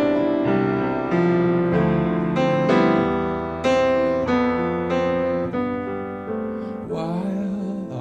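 Solo piano playing an instrumental passage between sung lines: chords and melody notes struck about once or twice a second, each ringing and fading into the next.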